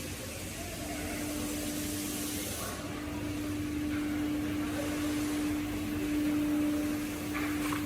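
Sawmill machinery running steadily, a constant hum over an even hiss.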